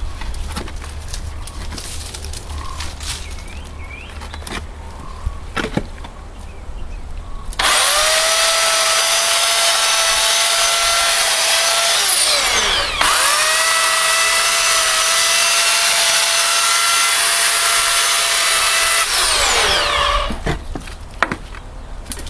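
Stramm 2000 W electric chainsaw motor, with rustling and handling noise first. About seven seconds in, it switches on with a high steady whine and cuts into dead branches. Near the middle the trigger is let go for a moment and the whine dips and spins back up; near the end the motor is released and winds down with falling pitch.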